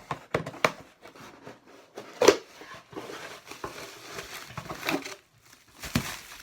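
Boxed packaging being opened and handled: irregular crinkling and rustling of plastic and bubble wrap with small clicks and taps, and one sharp snap about two seconds in.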